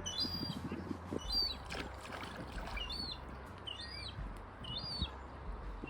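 Seagull calling over and over in short, high-pitched cries, each rising then falling, about one a second.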